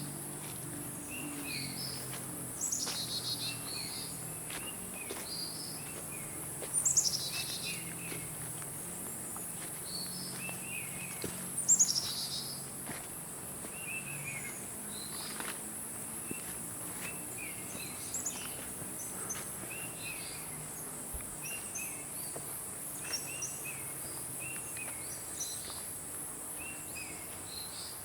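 Tropical forest ambience: a steady high insect buzz with many short bird chirps and calls. Three louder calls that fall in pitch stand out in the first half.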